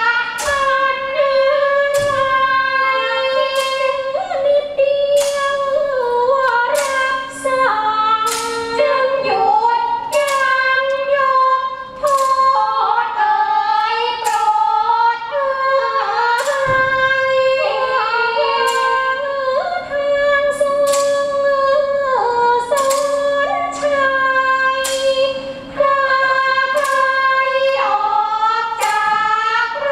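A woman singing a slow Thai classical vocal line with long held notes that slide between pitches, the accompaniment for a Khon dance-drama. Regular sharp percussion strikes keep the beat underneath.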